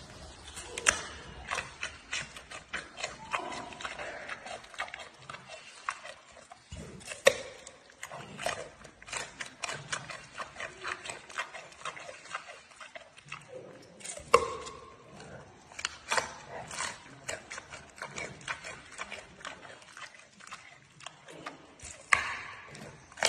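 Giant panda eating a raw carrot: steady crunching and chomping, with four loud snapping bites spread through, each a few seconds apart.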